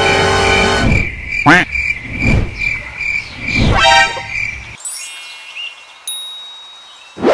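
Cartoon sound effects: a pulsing high beep overlaid with several quick swooping whistles, then, about six seconds in, a bright chime that rings and fades. Music cuts off in the first second.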